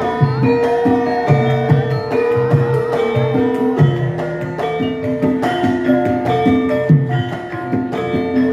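Javanese gamelan ensemble playing a gending: bronze metallophones and gongs sound interlocking melodic lines over repeated low drum strokes in a steady rhythm.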